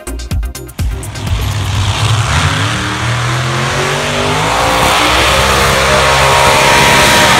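Electronic dance music cuts off about a second in, and a tractor-pulling vehicle's engine takes over at full throttle. Its pitch rises for a few seconds and then holds steady and loud.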